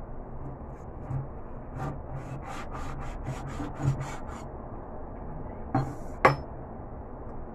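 A cleaver sawing back and forth through raw meat with skin on a cutting board: a run of about ten short rasping strokes, roughly four a second. Near the end come two sharp knocks, the second the loudest.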